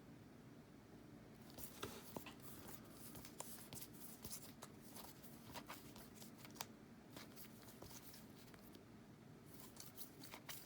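Faint clicks, taps and rustles of trading cards being handled and flipped through, with many small sharp ticks after the first second or so.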